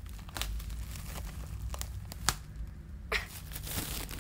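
Clear plastic shrink-wrap crinkling and tearing as it is pulled off an album box, with a few sharp crackles, the loudest a little past halfway, and a longer rustle near the end.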